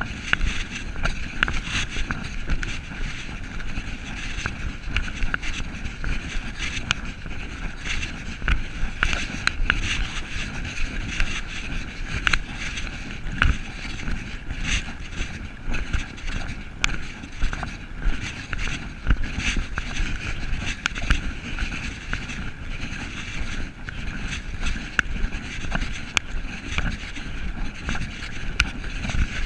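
Wind and handling noise from a camera carried along a woodland trail: a steady rumble and hiss with many small irregular knocks and rustles.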